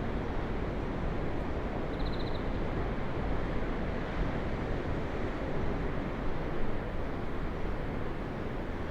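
Ocean waves washing on the shore: a steady, even rush of surf with no distinct breaks standing out.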